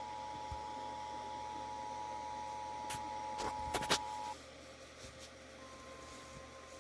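Emergency Alert System two-tone attention signal: two steady pitches sounding together, cutting off about four seconds in, with a few clicks just before it stops. A fainter single steady tone, a little higher, starts shortly after.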